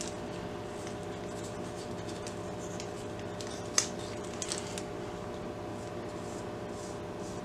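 Art supplies handled on a table over a steady room hum: a single sharp click about four seconds in, a few small clicks just after, then faint soft dabs of paint being put on paper near the end.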